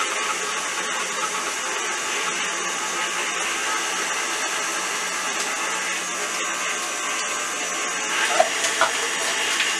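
KitchenAid stand mixer motor running steadily, beating the coconut pie filling. Two short knocks come about eight seconds in.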